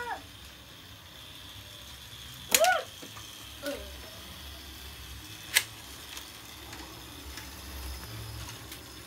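Vintage Lego 12V model trains running around the layout: a steady low hum, with a sharp click about two and a half seconds in followed by a brief squeaky sound, and another sharp click about five and a half seconds in.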